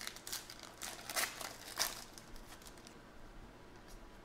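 Wrapper of a pack of baseball cards crinkling and tearing as it is opened by hand: a few sharp rustles in the first two seconds, then only faint handling of the cards.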